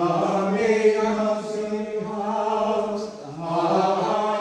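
A group of voices singing Gregorian chant together, with long held notes that shift slowly in pitch and a short break about three seconds in.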